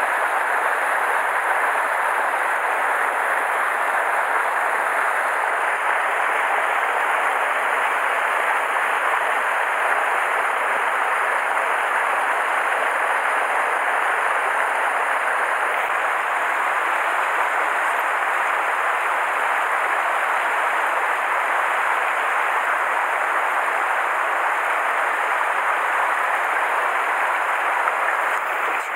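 Mountain stream rushing over boulders and small cascades, a steady, even rush of water.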